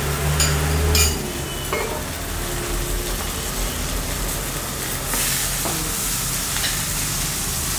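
Flour-coated chicken breasts sizzling in butter in a hot frying pan. A few light clicks and rustles come as butter is cut from the block, and the sizzle grows brighter about five seconds in as a fresh knob of butter goes into the pan.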